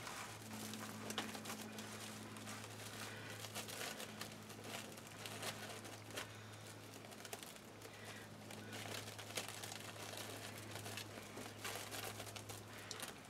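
Red plastic deco mesh crinkling and rustling in irregular small crackles as hands push through the wreath's mesh puffs to the wire frame, over a steady low hum.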